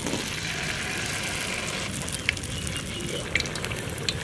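Batter-coated pumpkin flowers dropped into hot oil in a karahi, frying with a steady sizzle that starts at once, with sharp clicks and pops from about two seconds in.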